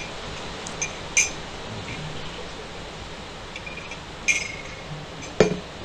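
A metal spoon clinking against a drinking glass several times, two of the clinks louder and ringing briefly, then a dull knock near the end as the glass is set down.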